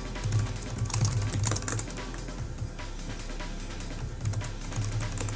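Typing on a computer keyboard, key presses coming in short clusters with gaps between them, over background music.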